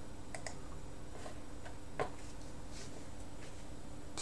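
Several faint computer mouse clicks at irregular intervals, one sharper click about two seconds in, over a steady low background hum.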